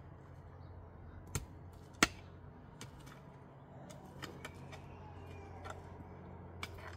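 A few short, sharp knocks or clicks, the loudest about two seconds in, over a low steady hum.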